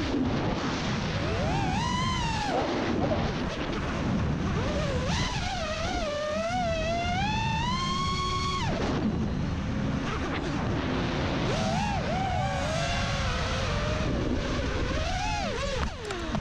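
FPV racing quadcopter's motors whining over a low rush of prop wash, the pitch rising and falling with throttle as it flips and dives. Near the end the motors cut and the sound drops away as it lands.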